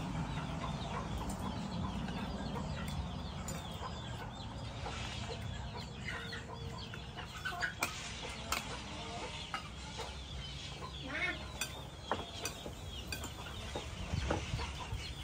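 Chickens clucking with many short calls, and the scattered sharp clicks of spoons and chopsticks on plates.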